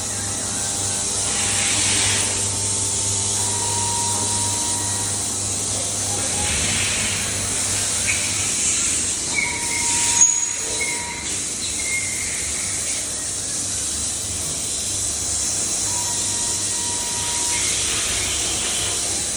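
CNC machining centre at work, cutting side holes: a steady hiss of machining noise with a few short whining tones from the cutting tool. There is a sharp click about ten seconds in.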